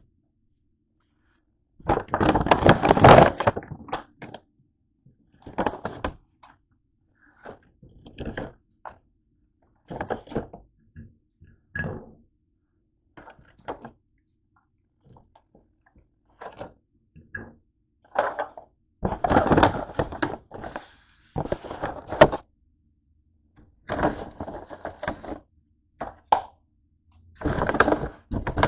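Takeout packaging being handled: a paper bag and a cardboard food box rustle and scrape in irregular bursts, with scattered thunks as things are set down on the counter.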